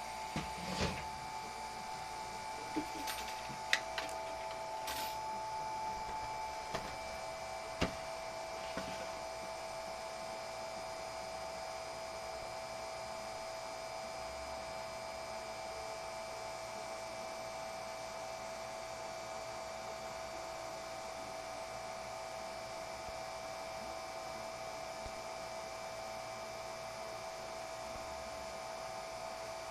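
Steady electrical hum made of a couple of high, even tones, one of which cuts out about six seconds in. A few light clicks and knocks of metal being handled come in the first several seconds.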